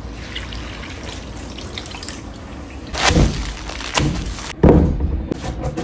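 A block of soft pottery clay thumped down onto a wooden workbench, three heavy thuds about three, four and four and a half seconds in, with wet squishing and handling of the clay between them.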